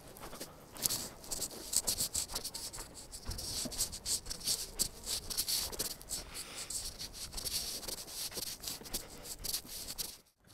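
Irregular scuffs, rubs and small clicks from a handheld phone being carried while walking over gravel and dirt, over a faint high hiss.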